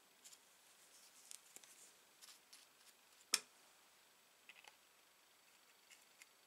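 Near silence with faint scrapes and light clicks of small parts work: a brush spreading grease into a hand drill's bearing housing, then needle-nose pliers setting a small ball bearing into it. One sharp click a little past the middle stands out; a few soft clicks follow later.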